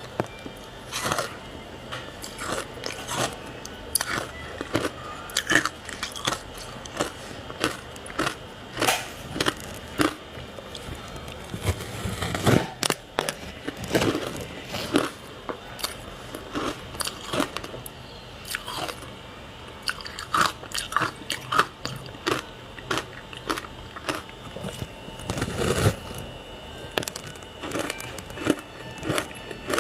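Hard ice being bitten and chewed close to the microphone: irregular sharp crunches and cracks, a few heavier bites among many smaller crackles.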